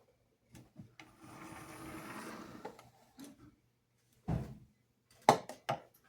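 Small parts of a model locomotive being handled on a work surface: a scraping rustle that lasts about a second and a half, then several separate taps and knocks.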